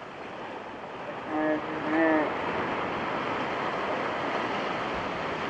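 Steady rush of surf breaking on a beach, building over the first couple of seconds, with two short pitched calls about a second and a half and two seconds in.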